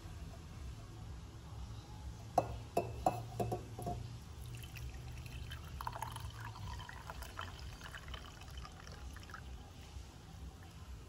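Milky tea poured from a stainless steel saucepan through a mesh tea strainer, trickling steadily for about five seconds. A few sharp clicks come just before the pour begins.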